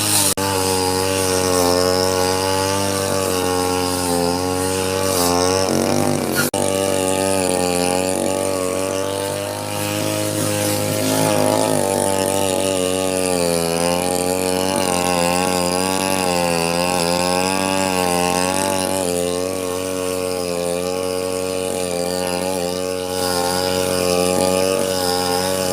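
Falcon 328 two-stroke brush cutter running steadily while cutting grass, its engine note wavering up and down with throttle and load. There is one sharp tick about six seconds in.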